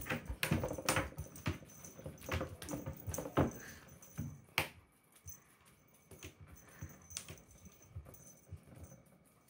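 Kitten's paws tapping and knocking on a wooden tabletop as it jumps and swipes at a cat teaser: an uneven run of taps and thumps, louder for the first four or five seconds, then only a few faint ticks.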